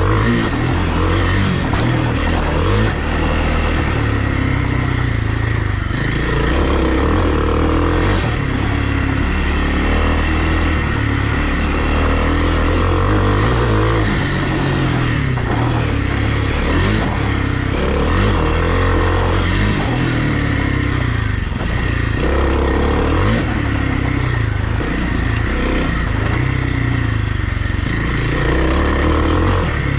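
Kawasaki KLX300R dirt bike's single-cylinder four-stroke engine running under changing throttle while riding a trail, its pitch rising and falling.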